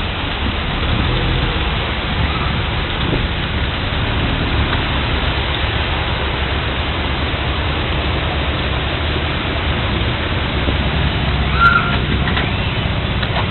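Heavy storm rain pouring steadily, with a deep rumble of wind underneath.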